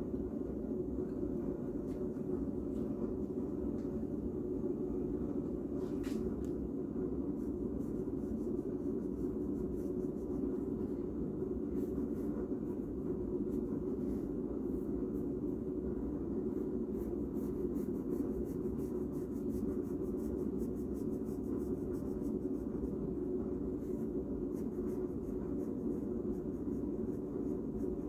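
Pencil drawing on paper: faint, short scratchy strokes, most frequent past the middle, over a steady low background hum.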